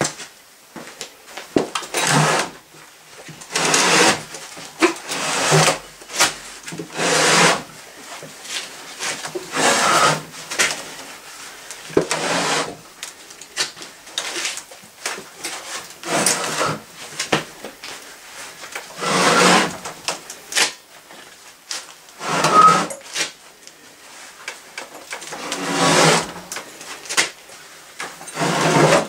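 Heavy metal elevator motor being shoved and slid across a plywood board, scraping and knocking against the wood in a dozen or so irregular bursts as it is worked into place.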